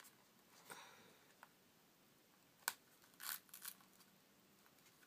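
Faint handling noises from a silicone tablet case being peeled off by hand: a few soft rustles and light clicks, the sharpest click a little past halfway.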